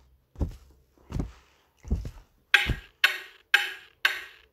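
Clock-like ticking: a few dull low knocks, then sharp, even ticks about two a second from about halfway through.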